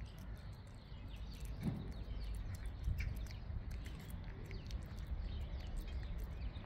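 A cat eating chunks of wet cat food, with many small quick clicks of chewing and licking, over a low steady rumble.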